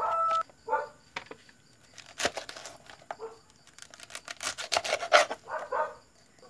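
Kitchen knife slicing through a head of cabbage on a plate, a run of quick crisp cuts from about two seconds in to about five seconds. Brief pitched voice-like sounds come at the start and near the end.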